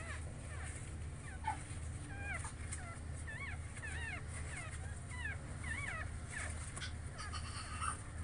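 Newborn pug puppies squeaking and whimpering as they nurse: many short, high squeaks that rise and then fall, several a second, over a low steady hum.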